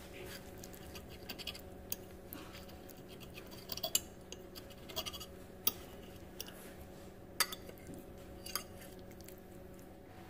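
A metal fork cuts through a slice of eggplant lasagna, scraping and clicking against the plate several times. The clicks come at irregular moments, and a faint steady hum runs underneath.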